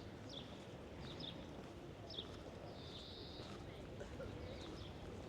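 Small birds chirping: repeated short high chirps, with a few longer buzzy notes, over a steady low background hum.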